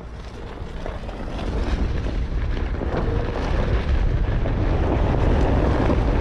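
Wind buffeting the microphone of a moving camera on a Onewheel ride, a low rumble that grows louder over the first couple of seconds and then holds steady.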